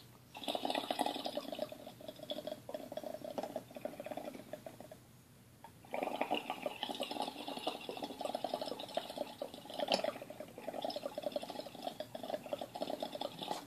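Water bubbling inside a glass dab rig as air is drawn through it, in two long pulls with about a second's break five seconds in. There is one louder pop of bubbles about ten seconds in.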